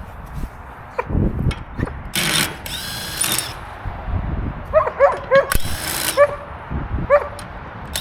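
A power tool run in short bursts, spinning a wheel's lug nuts loose, three bursts in all. Between the bursts, a dog whines and yelps in short rising and falling cries.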